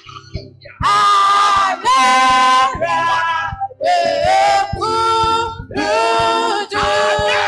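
Worship song sung in church: sustained sung phrases about a second long, with short breaks between them, over a steady low accompaniment.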